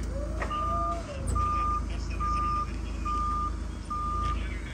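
Forklift backup alarm beeping in an even series, a little more than one beep a second, as the propane-powered Yale forklift reverses. Its engine runs steadily underneath.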